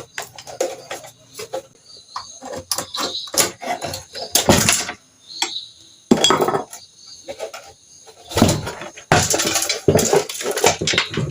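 Irregular clicks, scrapes and rattles of small plastic and metal parts being handled as the worn carbon brushes are worked out of a blender motor's brush holders.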